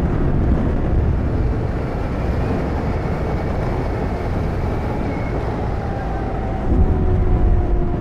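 BMW F800GS parallel-twin motorcycle engine running under way, mixed with wind and road noise. It gets louder for a moment near the end.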